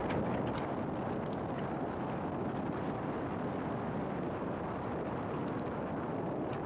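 Steady road and wind noise of a car driving: a constant rush with no change in pitch or level.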